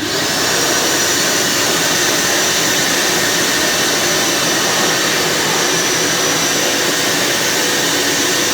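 Kärcher NT 38/1 Me Classic wet-and-dry vacuum cleaner running steadily: a loud, even rush of air with a thin high whine on top.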